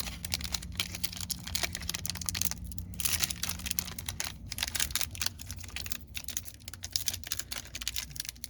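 Foil trading-card pack wrapper crinkling and crackling as it is handled, a dense run of small sharp clicks with a couple of short pauses.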